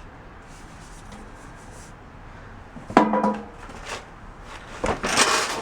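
Items being handled while a box is unpacked: a sharp knock about three seconds in, a lighter one a second later, then rustling near the end.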